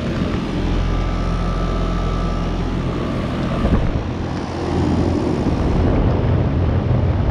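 A 2017 Ameristar M4HP4 3-ton heat pump outdoor unit running in heat mode: a steady low compressor hum with fan noise, getting louder about five seconds in.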